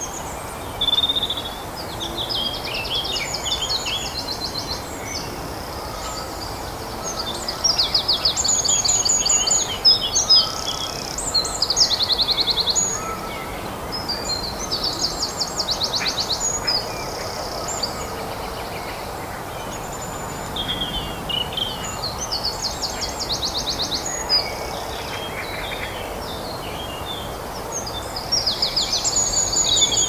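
European robin singing: phrases of high, rapid trills and thin warbling notes, each a few seconds long with short pauses between, over a steady background hiss.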